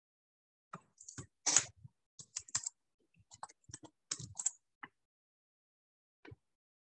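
Typing on a computer keyboard: a quick, uneven run of key presses for about four seconds, then one last tap near the end.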